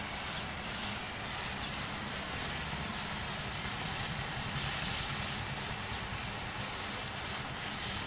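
Steady hiss of eggs frying in a pan over an open wood fire, with a low rumble underneath.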